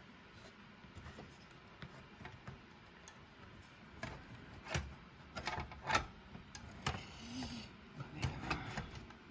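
Irregular clicks, taps and knocks of hands working on a CD-cassette deck's mechanism, getting busier and louder about halfway through.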